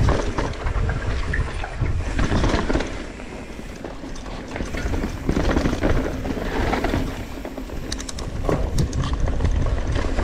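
Mountain bike riding down a rocky dirt trail, heard from a camera on the rider: a low rumble of tyres and riding that swells and fades, with bike rattle and a run of sharp clicks about eight to nine seconds in.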